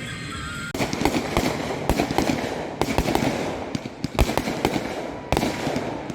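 Fireworks going off: a quick string of sharp bangs over a dense crackle, starting less than a second in.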